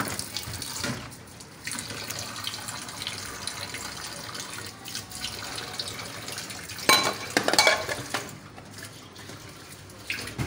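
Tap water running steadily into a stainless steel kitchen sink during hand dishwashing, with a cluster of louder dish knocks about seven seconds in.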